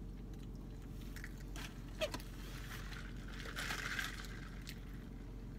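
Eating sounds: a few mouth clicks while chewing, then a sip through a straw from a large fountain soda cup, heard as a hissy draw lasting about a second, some three seconds in. A steady low hum of the car cabin runs underneath.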